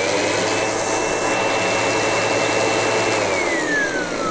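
Windsor Sensor S12 upright vacuum cleaner running after its control board and broken wire were repaired. Its motor whine finishes rising to full speed, holds steady, then falls away as the motor winds down about three seconds in. The motor now runs, so the repair has worked.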